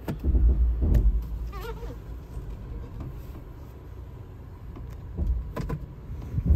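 Low, uneven rumble inside the cabin of a 2011 Toyota FJ Cruiser with its 4.0-litre V6 running. A few knocks and clicks come near the start and about five seconds in, and a brief squeak comes near two seconds.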